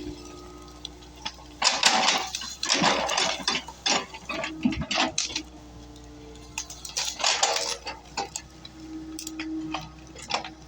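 Excavator at work: irregular clusters of metallic clanks and scrapes from the bucket and steel linkage, over the steady hum of the engine and hydraulics.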